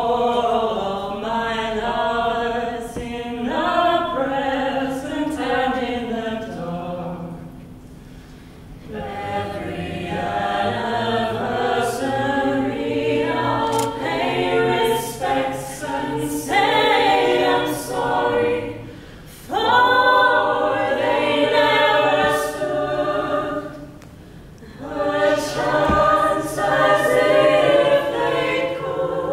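Mixed-voice a cappella group singing in close harmony, with a low bass voice underneath from about ten seconds in. The phrases break off briefly about eight, nineteen and twenty-four seconds in.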